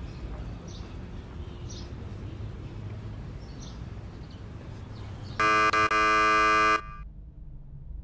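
Quiet street ambience with a few faint bird chirps. About five and a half seconds in, an electric door buzzer sounds loud and steady, twice: a short press, then a longer one of about a second that cuts off sharply.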